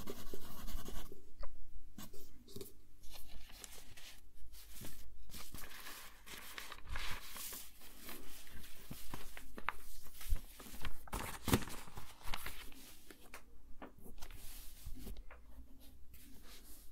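Pencil scratching as it writes on lined paper, with sheets of paper shuffled and rustled partway through, and the pencil writing again near the end.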